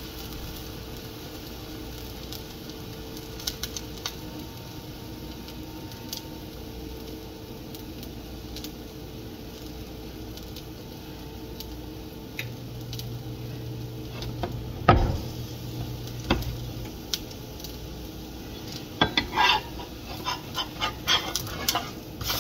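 Chickpea-flour pancake sizzling softly in a nonstick frying pan, with a single sharp knock about two-thirds through. Near the end a spatula clicks and scrapes against the pan as it is worked under the pancake to flip it.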